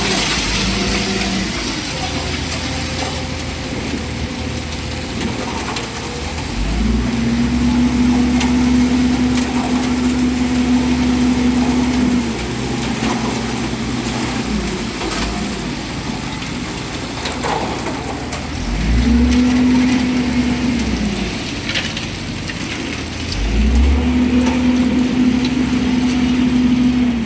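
Diesel engine of a self-loading concrete mixer running and revving up three times, holding a higher steady note each time: for about six seconds from about a quarter of the way in, then briefly twice more in the last third.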